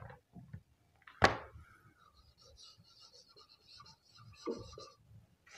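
Marker pen writing on a whiteboard: a sharp tap about a second in, then thin squeaky, scratchy strokes as the words are written.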